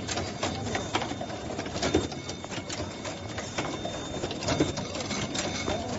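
Automatic face-mask production line running, its moving parts giving a steady mechanical clatter of rapid, irregular clicks over a constant hum.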